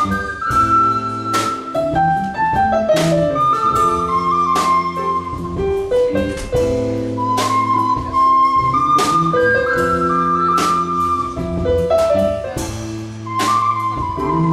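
Live band playing an instrumental passage. A lead melody moves in held notes over sustained chords and a bass line, with drum and cymbal hits throughout.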